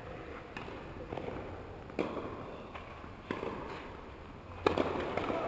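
Tennis balls struck by rackets and bouncing on an indoor court: about five sharp pops at uneven intervals, echoing in the hall, the loudest near the end.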